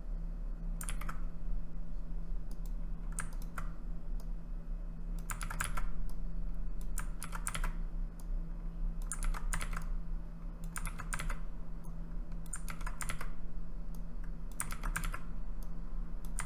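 Computer keyboard keystrokes in short clusters of a few clicks each, about one cluster every two seconds, typical of repeated copy-paste shortcuts. A steady low hum runs underneath.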